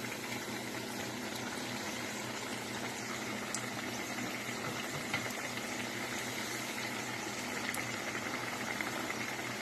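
Hot oil bubbling and sizzling steadily around pieces of scone dough deep-frying in a pot, with a few faint clicks.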